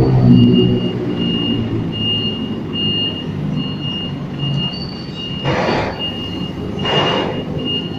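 Forklift engine running as it drives with a loaded pallet of cement bags, its warning beeper sounding at about one and a half beeps a second. Two short hisses come about five and a half and seven seconds in.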